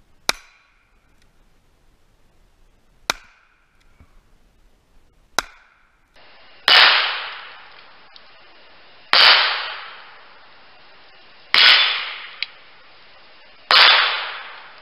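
Seven shots from a High Standard .22 rimfire handgun, spaced about two to three seconds apart, hitting steel targets. The first three are short and sharp with a brief metallic ring after each; the last four are fuller, each with a long fade.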